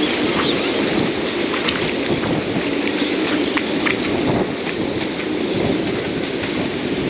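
Hurricane wind blowing hard across the microphone with heavy rain, a steady rushing noise flecked with scattered small ticks of raindrops and spray.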